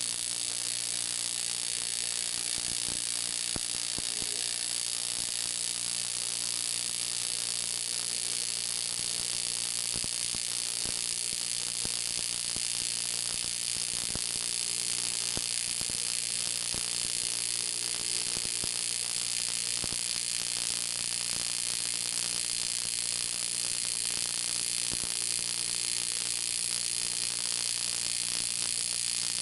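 TIG welding arc on 3 mm aluminium sheet: a steady buzzing hum under a hiss, with faint crackle, the arc running without a break as a seam is welded through.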